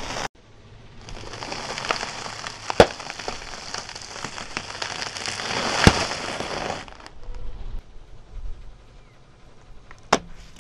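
Car tyre crushing a packet of dry rusks: dense crackling of the toast breaking and the plastic wrapper crinkling, with two loud sharp cracks about three and six seconds in. The crackle dies down near seven seconds, and a single sharp snap comes near the end.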